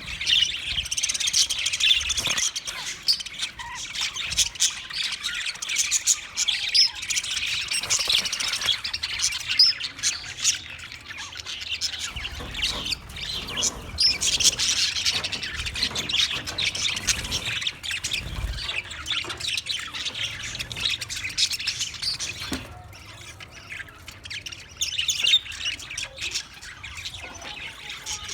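English budgie (budgerigar) chirping in a rapid, continuous stream of high chirps, with a brief quieter spell late on.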